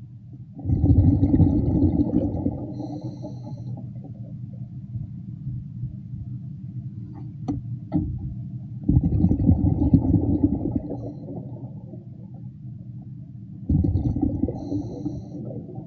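A diver breathing underwater: three bursts of exhaled air bubbling and rumbling out, a few seconds apart, with two sharp clicks between the first two bursts.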